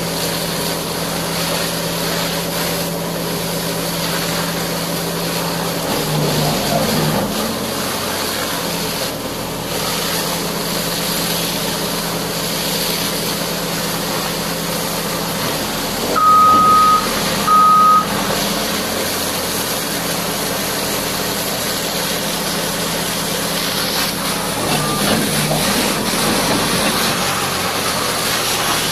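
Heavy diesel engine running steadily, its note shifting briefly a few times. About sixteen seconds in, two loud high beeps sound, the first longer than the second.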